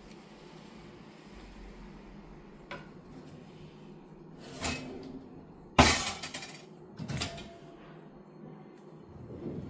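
Glass dishes or containers knocking and clinking as they are handled and set down. There are four knocks, and the loudest, about six seconds in, is a clattering crash with a short rattle after it.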